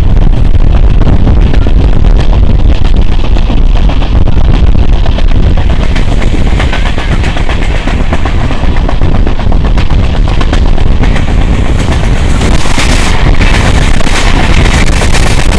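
Passenger train running at speed, heard from an open coach door: a loud, steady rumble of wheels on rail with rapid clicking. From about twelve seconds in, a suburban electric multiple unit passing close on the adjacent track adds a brighter rushing noise.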